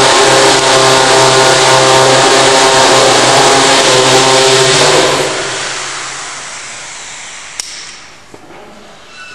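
A loud engine running steadily with a low hum and hiss, fading away over the last few seconds.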